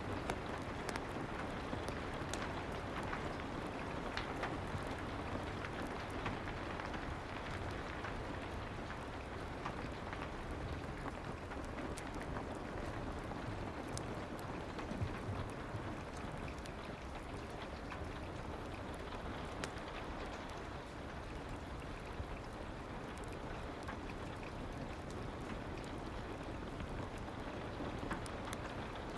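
Soft, steady rain ambience with scattered faint clicks of a crackling fireplace.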